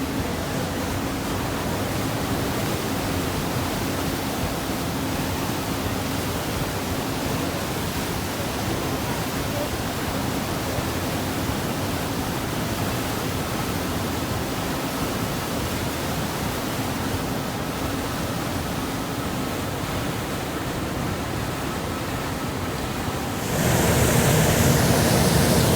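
Passenger ferry under way: a steady rush of water and wind over a low engine hum. The rush grows louder and fuller near the end.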